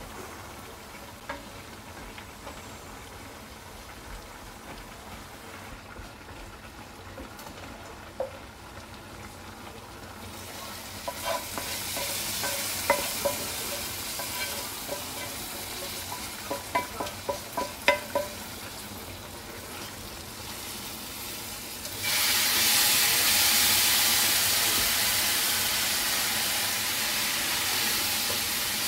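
A wooden spoon knocks and scrapes against a frying pan, then about two-thirds of the way through a loud, steady sizzle starts suddenly as the hot fried seasoning from the pan hits the pot of molokhia broth.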